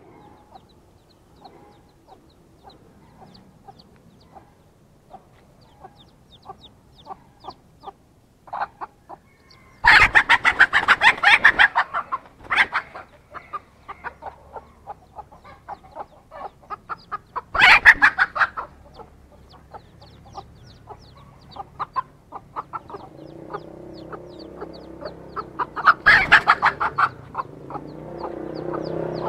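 Hen clucking in a steady run of short soft calls, broken three times by loud, harsh outbursts of rapid calling, about ten, eighteen and twenty-six seconds in.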